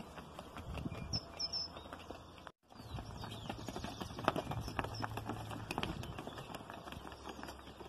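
Horse's hooves striking asphalt in a quick, steady clip-clop as a young horse is led along a paved road at a brisk gait, with a brief break about a third of the way through.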